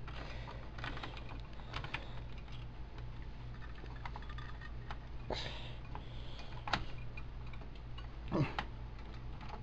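Scattered light clicks and knocks of parts being handled and fitted back into a Dell Optiplex 755 desktop case, over a steady low hum.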